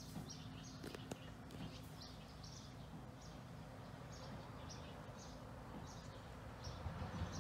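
Faint outdoor ambience: a short high chirp repeated about twice a second over a steady low hum.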